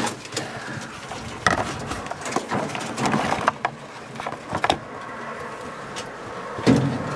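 Scattered light knocks and rustles, a second or so apart, with a louder thump near the end.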